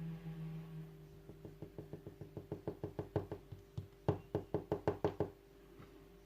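Rapid train of small sharp metallic clicks from a lock pick working the pins of a pin-tumbler lock. The clicks speed up and grow louder to about five a second, then stop abruptly. A low hum is heard in the first second.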